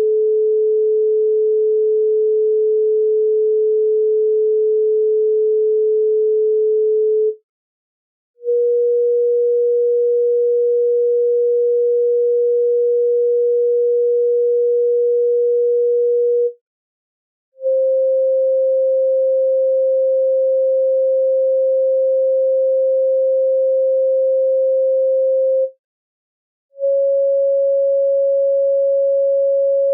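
Electronic sine-wave chakra tones in 432 Hz tuning: pure single tones, each held steady for about eight seconds. There are three short silences, and after each one the next tone is a little higher, so the pitch steps up four times in all.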